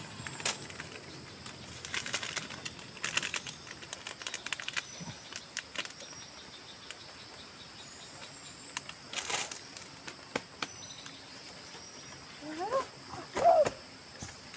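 Steady high-pitched drone of forest insects, broken by scattered short rustles and knocks. Two short gliding calls come near the end.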